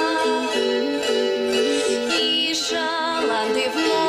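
Folk ensemble playing a song: a melody that moves in steps over plucked strings.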